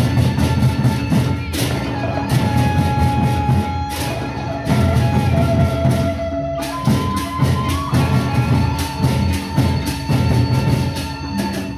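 A Lombok gendang beleq ensemble playing: big double-headed Sasak barrel drums beaten in a fast, dense rhythm, with rapid cymbal clashes and a sustained melodic line stepping between pitches above them.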